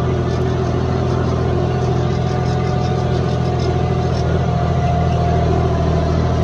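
John Deere 5050D tractor's diesel engine running steadily at working speed under load, pulling a disc harrow. Its fuel injection pump is modified on the original turbo, and the engine holds its revs with about a 150 RPM drop under load.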